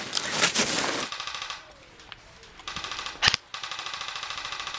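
Airsoft electric rifles firing full-auto bursts, a fast even rattle of shots: a short burst about a second in, another near three seconds with a sharp crack, then a longer steady burst from halfway on.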